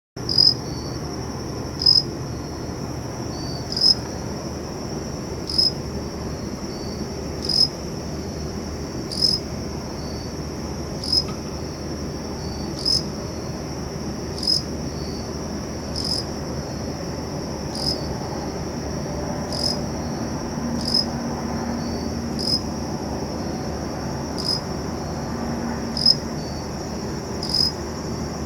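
Crickets chirping at night: a continuous high trill with a louder chirp repeating about every two seconds, over a low, steady background rumble.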